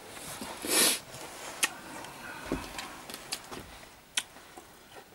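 A person's short, noisy breath close to the microphone about a second in, followed by a few scattered faint clicks and taps.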